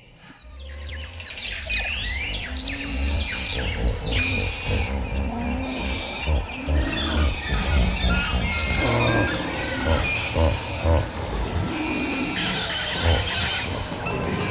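Bird calls and chirps layered over a low bass, fading in at the start: a jungle-sounds intro to an electronic dance track.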